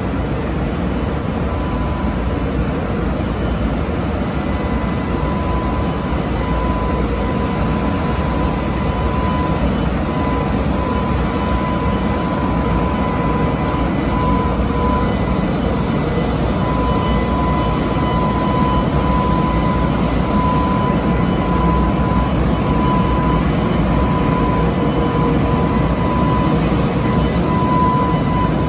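JR Freight EH500 electric locomotive rolling slowly past at the head of a container freight train: a continuous heavy rumble, growing slightly louder as it draws alongside. A steady high hum runs over it.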